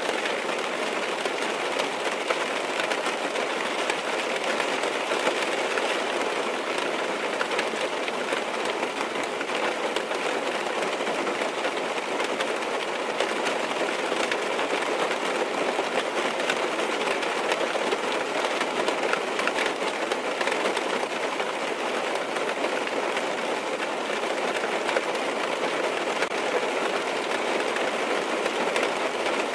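Steady rain falling on a car's roof and windows, heard from inside the cabin: an even hiss with many fine drop taps throughout.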